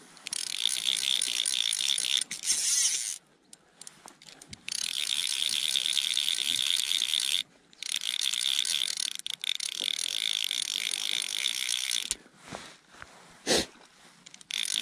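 Fly reel's click-and-pawl ratchet buzzing rapidly as line runs through it, in several long spells broken by short pauses, with a couple of light knocks near the end.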